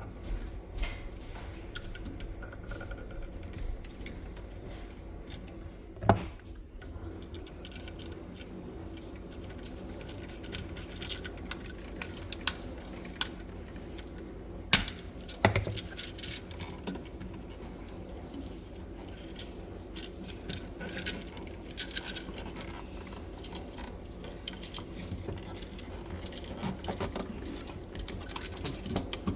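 Small metallic clicks, taps and rattles of hand tools and copper wire being worked at a GFCI outlet's terminals. A few sharper knocks stand out, the loudest about six seconds in and again about fifteen seconds in.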